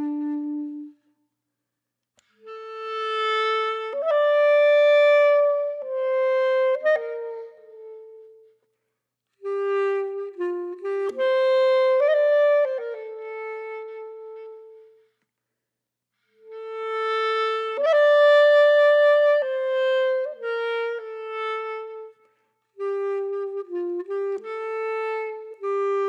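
Background music: a solo woodwind melody, one held note at a time, played in phrases broken by short silences of a second or two.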